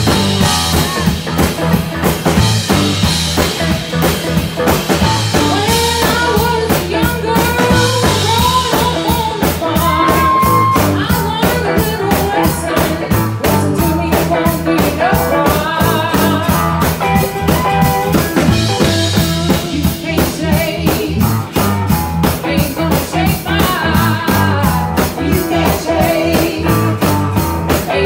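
Live band playing a song after a count-in: strummed acoustic guitar, electric guitar and a drum kit keeping a steady beat, with a woman singing.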